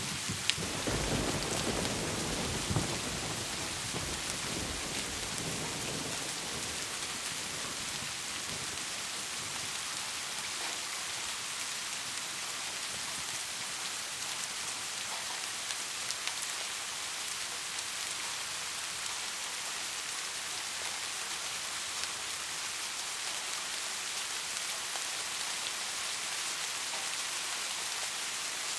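Steady heavy rain hissing. A low roll of thunder fades out over the first few seconds.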